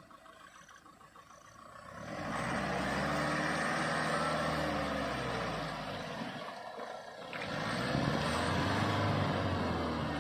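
Mahindra Scorpio N 4x4 SUV engine revving hard under load, its pitch rising and falling. It comes in about two seconds in over faint rhythmic chirping, eases off briefly around the middle, then pulls hard again.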